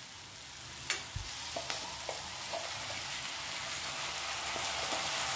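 Ginger-garlic paste and sliced onions frying in hot oil in a kadai, a steady sizzle that grows louder, with a sharp click of a spatula against the pan about a second in and a few lighter taps.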